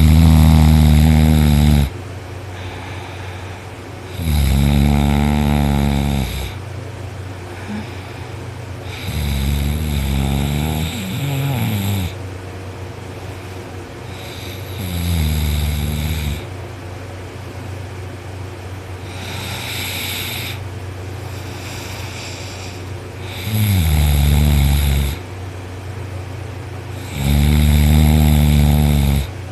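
A man sleeping on his back snoring loudly: about seven long snores, each lasting a second or two and coming every four to five seconds, some sliding down in pitch. A steady low hum runs underneath.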